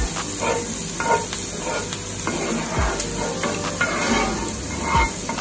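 Diced onion, green sweet pepper and garlic sizzling in a cast-iron skillet, with a wooden spoon scraping and stirring them through the pan. One sharp click, the loudest sound, comes about three seconds in.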